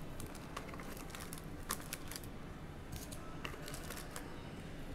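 Irregular light clicks, taps and rustles of a cardboard trading-card hobby box and its foil packs being handled as the box is opened and the packs lifted out.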